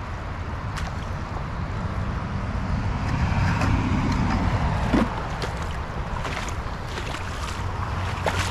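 Wind buffeting the microphone over flowing creek water, with one sharp knock about halfway through.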